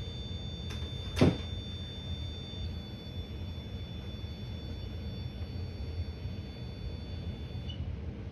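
A single sharp knock about a second in, the loudest sound here, over a steady low hum. Faint, steady, high-pitched electronic tones stop a couple of seconds in.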